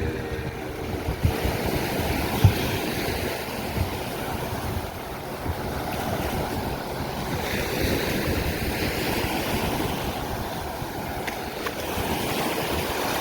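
Ocean surf washing steadily onto the beach, with wind buffeting the microphone now and then.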